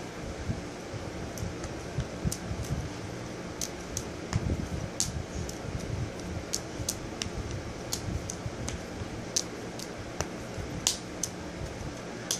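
Steady whir of a ceiling fan, with irregular short clicks and soft taps as small balls are tossed and caught by hand while juggling.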